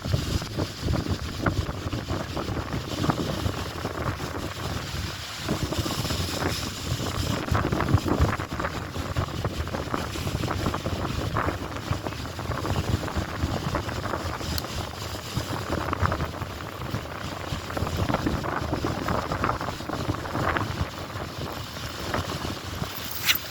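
Wind buffeting the microphone over choppy lake water with waves splashing against the shore, and a short sharp click near the end.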